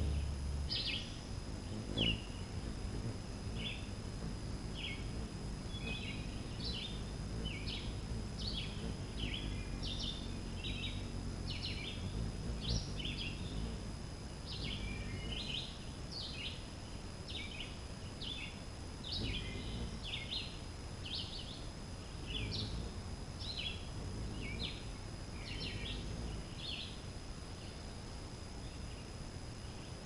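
Birds chirping: a long run of short, high chirps, one or two a second, that die away near the end, over a low steady outdoor rumble.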